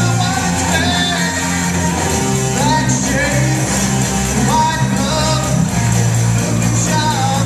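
A live rock band playing: electric guitars and drums, with a singing voice over steady bass notes.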